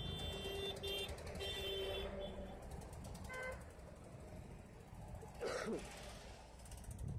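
Highway traffic running past: a steady rumble of trucks and motorcycles, with a short vehicle horn about three seconds in and a brief louder noise a little past the middle.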